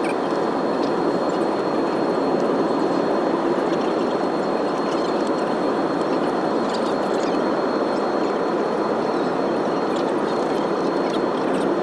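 Steady cabin noise inside a Boeing 787-9 airliner: an even rush of engine and airflow noise with a faint, constant high whine.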